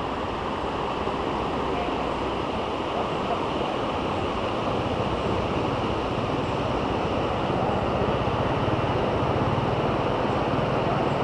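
Steady rushing of waterfall water, an even noise without any pitch, growing a little louder about two-thirds of the way through.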